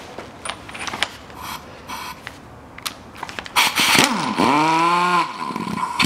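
A few light metal clinks, then a pneumatic impact wrench runs for about a second and a half, spinning a bearing puller's forcing screw down onto the wheel hub; its pitch dips, then rises to a steady note before it stops.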